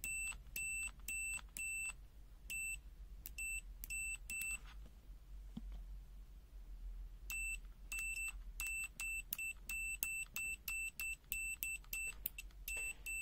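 ANENG AN-101 multimeter's continuity beeper giving repeated short, high-pitched beeps as its test probes are touched together and parted. There is a pause of a couple of seconds around the middle, then the beeps resume at about two or three a second.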